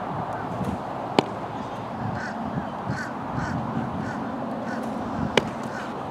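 Baseball popping into a catcher's mitt twice, a sharp crack about a second in and again near the end, over a steady outdoor hiss. In between, a bird calls in a string of short, repeated calls.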